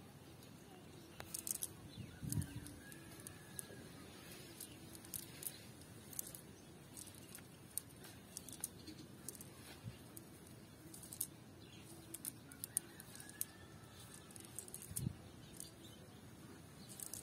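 Faint rustling and light scattered clicking of a fishing net being picked through by hand on grass, with two soft low thumps, about two seconds in and near the end. Faint bird calls can be heard behind.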